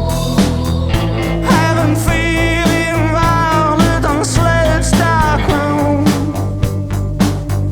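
Rock music with a steady beat, bass and a bending lead melody.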